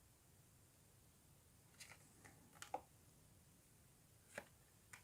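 Faint handling of Pokémon trading cards: soft clicks and flicks as cards are slid and flipped, a cluster of them about two to three seconds in and two more near the end, over near silence.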